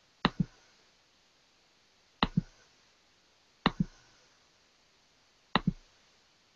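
Four quick double clicks, each a pair of sharp clicks in close succession, spaced about one and a half to two seconds apart.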